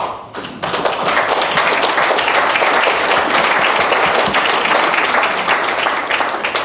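Audience applauding, starting about half a second in and dying down near the end.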